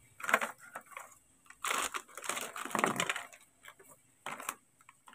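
Dry square crackers being handled and set down in stacks on a plastic tray: irregular short bursts of dry clattering and rustling, about seven in all, with brief quiet gaps between them.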